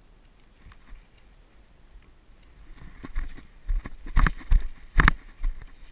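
A fairly quiet stretch, then from about halfway a rapid, irregular run of sharp knocks and heavy thumps right at the microphone, the loudest shortly before the end.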